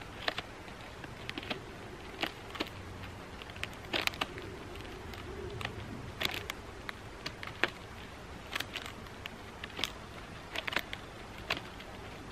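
Paper plates being handled and pulled apart from a stack, giving irregular crisp clicks and rustles.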